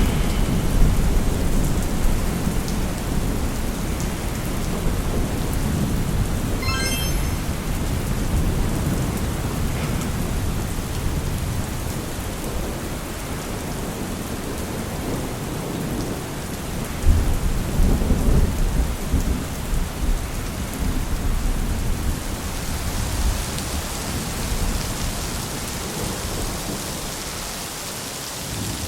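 Thunderstorm ambience: steady rain with rolling thunder rumbling, loudest about a second in and again from about seventeen to twenty seconds in, the rain hiss growing brighter near the end.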